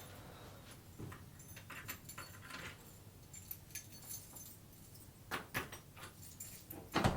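Faint metallic jangling and light clicking of keys and tools being worked at a door lock, with a couple of louder clicks a little after five seconds in and a loud knock near the end.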